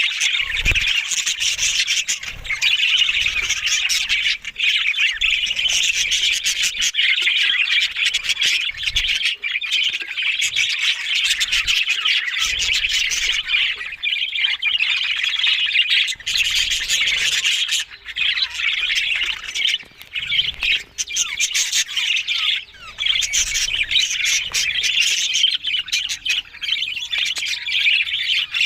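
Budgerigars chattering and warbling without a break: a dense, high stream of chirps and squawks.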